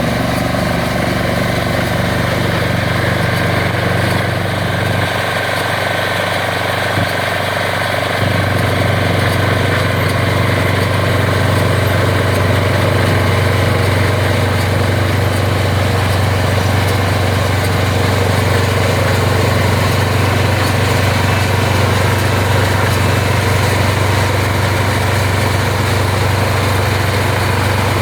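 ISEKI RBX810 ride-on straw baler's 7.5 hp diesel engine running steadily. Its low hum grows fuller and a little louder about eight seconds in.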